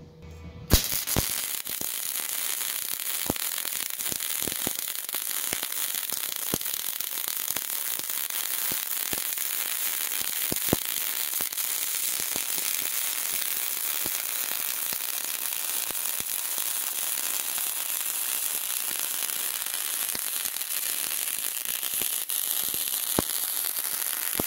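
MIG welding arc running a continuous circular bead: a steady, loud crackle and hiss with frequent sharp pops of spatter, striking up sharply under a second in.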